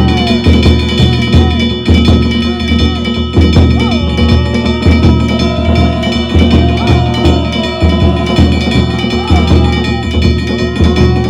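Danjiri festival narimono: a taiko drum beaten in a steady rhythm of a few strokes a second, under small hand gongs ringing on.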